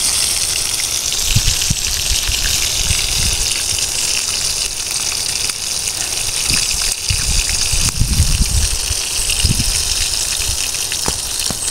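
Meat frying in a pan over a wood fire: a steady, dense sizzle, with a few low bumps from the pan being handled and stirred.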